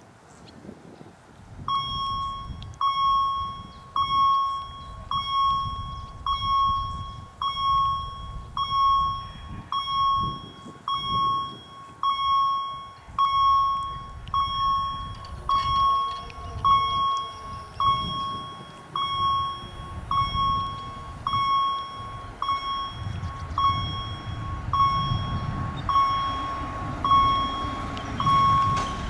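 Level-crossing warning bell ringing in steady, evenly spaced dings, about one and a half a second, starting about two seconds in: the signal that the crossing is closing for an approaching train. A low rumble builds under it near the end.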